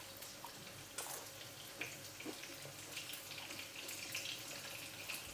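Panko-breaded chicken pieces frying in oil in a frying pan: a quiet, steady sizzle with small crackles. A few sharp crunches of crispy fried chicken being bitten and chewed, about one and two seconds in.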